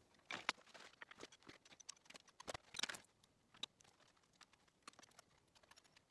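Faint, scattered clicks and light knocks of metal engine parts being handled and set in place on an open cylinder head.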